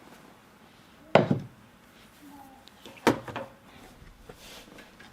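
Two sharp knocks about two seconds apart, each with a short clatter, as the opened Mac Mini's case parts are handled and set down.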